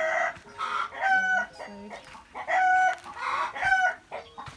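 Chickens calling and clucking, with several short, loud calls about a second apart.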